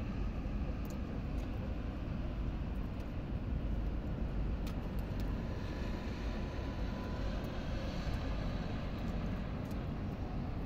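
Steady low outdoor rumble of city background noise, with a few faint clicks.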